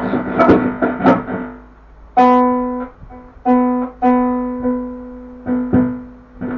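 Guitar string plucked several times on one pitch, each note ringing and fading, picked up by a loose humbucker pickup held against the strings and played loud through an amplifier. Scratchy clicks and knocks from handling the pickup come in the first second and a half.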